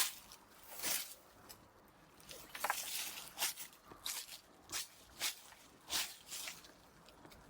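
Dry leaves and twigs rustling and crunching in short, irregular bursts, about one to two a second, like steps or handling through leaf litter and brush.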